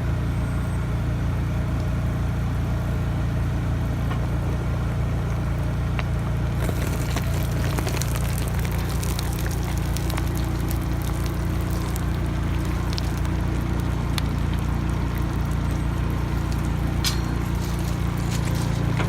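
Thermit charge burning in the crucible: a hissing crackle full of small sharp ticks starts suddenly about six and a half seconds in and keeps going. A steady low engine hum runs underneath.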